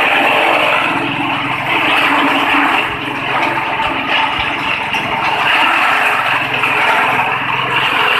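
Roller-fed grass chopper driven by a small petrol engine, running steadily at speed while its blades chop grass and throw the cuttings out, a continuous loud mechanical noise that dips slightly about three seconds in.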